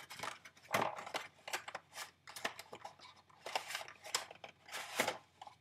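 Packaging being handled and opened by hand: irregular crinkling, rustling and small clicks, a few louder crackles among them.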